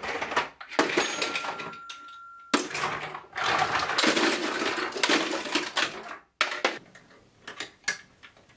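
Hard household objects clattering, knocking and being set down as they are handled and put away, busiest through the middle. A thin steady tone sounds for about a second and a half near the start.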